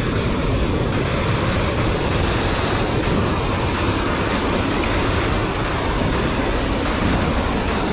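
Steady rush of fast-flowing water, a loud, even roar of current or falling water with no break.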